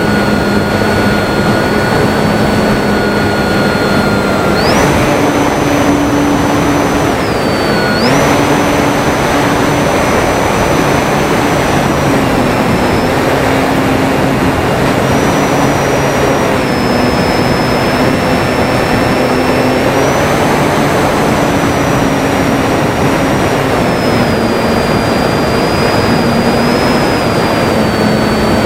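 Durafly Tundra RC plane's electric motor and propeller whining, its pitch stepping up and down several times with throttle changes, under heavy wind noise on the microphone.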